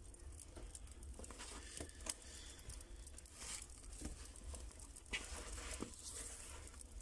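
Faint, irregular crackling and ticking from a bed of glowing wood embers, over a low rumble.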